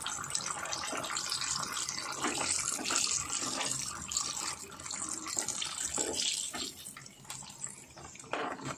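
Coated chicken pieces deep-frying in hot soybean oil: a steady crackling sizzle, easing a little near the end.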